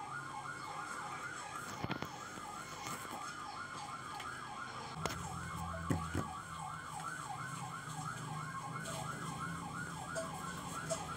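A warbling, siren-like electronic tone that rises and falls quickly, about three times a second, at a steady level, with a few faint clicks.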